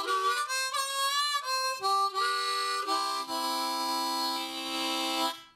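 Blues harp (diatonic harmonica) playing a short riff with bent notes, then a chord held for about two seconds that cuts off suddenly near the end.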